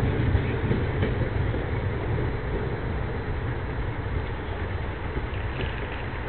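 Passenger train rolling away at low speed, a low rumble that fades steadily as its rear double-deck car recedes.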